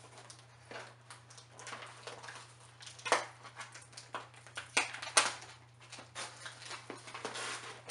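A cardboard doll box being handled and worked open by hand: irregular rustling and scraping of card, with scattered clicks and a few sharp snaps, the loudest about three and five seconds in.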